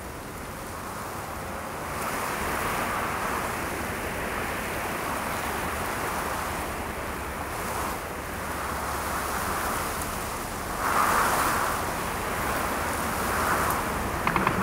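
A rushing noise that swells and eases several times, with its biggest surge about three quarters of the way through. Right at the end a fast rattle of gunfire begins.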